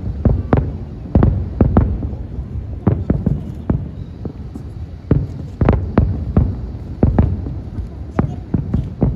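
Fireworks display: aerial shells bursting one after another in an irregular string of deep booms, two or three a second, with a short lull midway.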